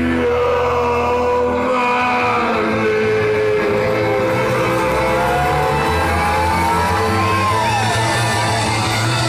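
Live band playing loud music, with sousaphone, guitar and drums; held notes sound through it, and one high note slides slowly upward and falls back near the end.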